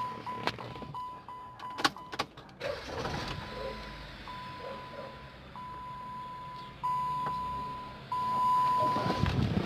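A 2010 Dodge Avenger's dashboard warning chime beeps as a steady high tone, in short beeps and then in longer tones. About two and a half seconds in, the car's engine starts and runs at idle, rising near the end. It is started to check whether the strange noise is gone.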